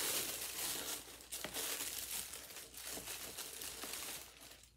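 Tissue paper crinkling and rustling as it is handled and pulled away while unwrapping a pair of shoes, dying away just before the end.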